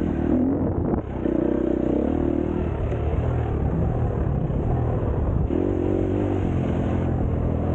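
An engine running steadily, with a wavering higher tone rising and falling over it.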